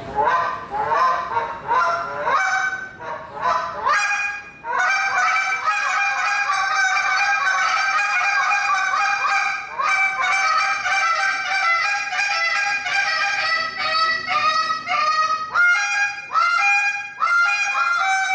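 Hand-blown goose call played in a contest routine: separate rising honks at first, then a long fast run of rapid clucks and honks, ending with spaced single honks.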